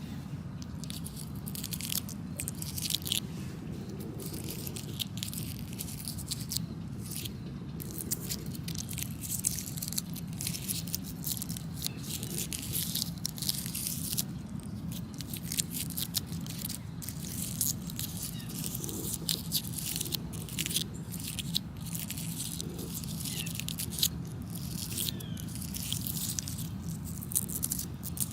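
Papery strawflower bracts crackling and rustling as fingers stroke them: a dense, irregular run of crisp crackles, over a steady low background rumble.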